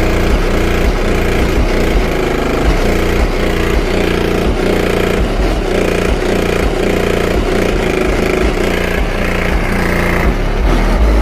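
Bass-heavy rap song played loud through a car stereo with two Skar Audio SVR 15-inch subwoofers, the deep bass dominating in a steady beat.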